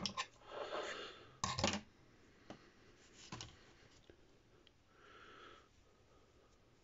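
Brass wool being pulled apart and handled: faint scratchy rustling with a few sharp clicks and knocks in the first two seconds, then a couple of light ticks and a short soft rustle.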